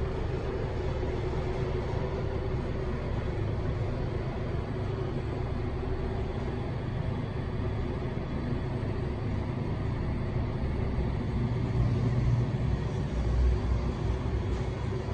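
Thyssen passenger elevator car travelling up its shaft: a steady low rumble with a faint hum. It grows louder for a few seconds near the end as the car comes in to its floor.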